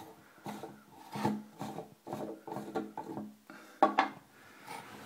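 Plastic screw-on top of a ceramic scale reducer being twisted by hand, giving a run of short rubbing, scraping strokes of plastic on plastic, about three a second. A couple of sharper clicks come about four seconds in.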